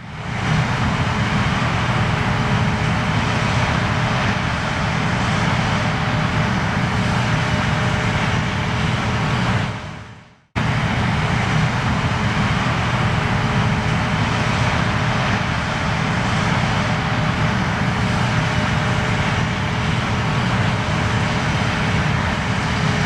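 John Deere combine harvester running steadily while cutting wheat: a continuous dense engine drone with a steady low hum. It fades out shortly before ten seconds in and comes straight back at a cut.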